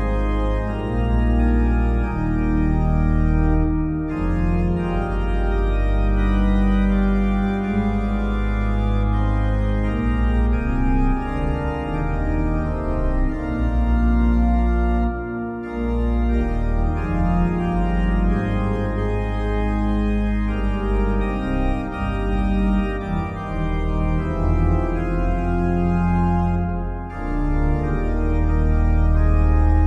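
Background music of sustained organ chords over a deep bass, moving from chord to chord every few seconds.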